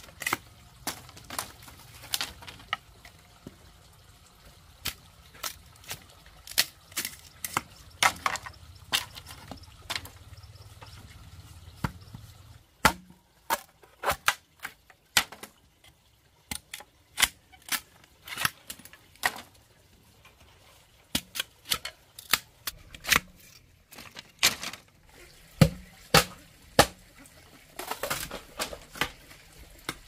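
A knife blade chopping and tapping into an upright bamboo pole: a string of sharp, irregular knocks, one or two a second, sometimes several in quick succession.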